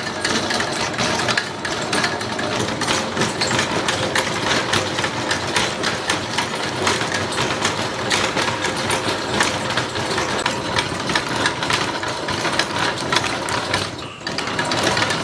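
Homemade bevel-gear pedal drive being cranked, its gearbox clattering in a fast, steady rattle of rapid clicks as the propeller shaft spins. The rattle drops away briefly near the end, then resumes.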